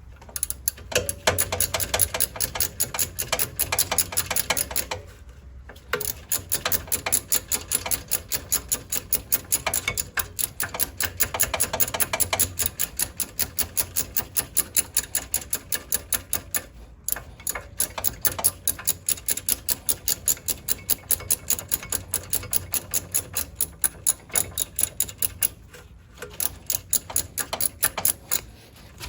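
Small ratchet wrench clicking in rapid, even strokes, about three to four clicks a second, with a few short pauses, as it turns out a rear brake caliper's 7 mm hex bolt.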